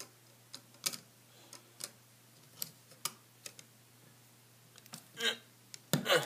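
Small hard-plastic action-figure accessories clicking and tapping as a thin plastic staff is pushed into a plastic shield: scattered light clicks, then a few louder clicks near the end as the staff goes in.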